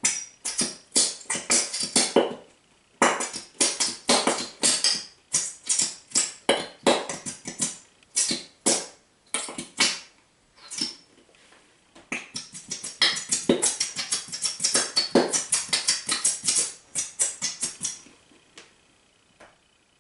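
A squeezed tube of pink glitter glue sputtering and squelching as air and glue spurt from the nozzle, in quick irregular bursts a few times a second with a couple of short pauses, stopping about two seconds before the end.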